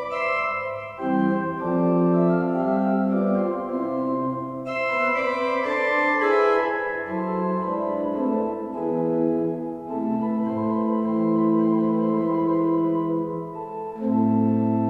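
Pipe organ playing a slow interlude of held chords that change every second or two, with a deep bass note coming in near the end.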